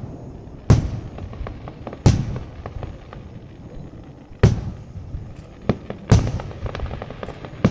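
Aerial firework shells bursting: four heavy booms, about 0.7, 2, 4.5 and 6 seconds in, each trailed by a low rumble, with lighter cracks in between.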